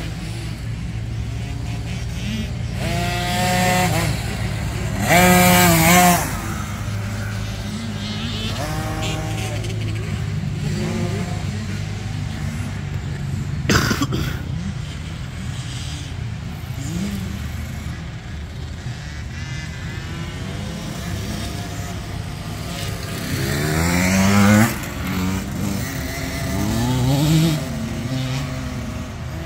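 Motocross dirt bikes revving and passing on the track, the engine pitch rising and falling several times over a steady low engine drone, loudest a few seconds in and again near the end. A single sharp knock about fourteen seconds in.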